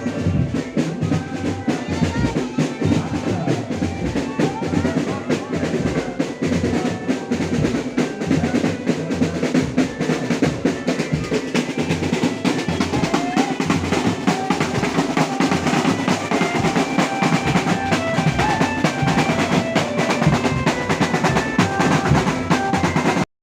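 Drum-led music for a jaran kencak horse dance, the drums beating busily under a melody line. It cuts off suddenly just before the end.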